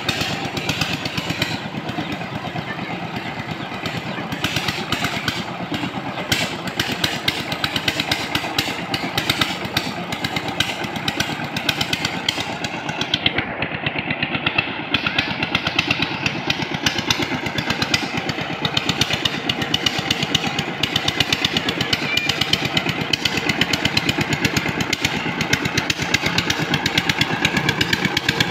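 Single-cylinder diesel engine of a two-wheel walking tractor running steadily under load, a rapid, even chugging of firing strokes, as its cage wheels churn through flooded paddy mud.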